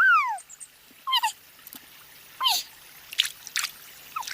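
An animal's short falling calls, four of them, the first the loudest, with a few brief splashy clicks of water in between.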